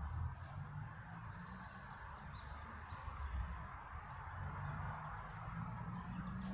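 A bird chirping a run of short, high notes over steady outdoor ambience, with an uneven low rumble underneath.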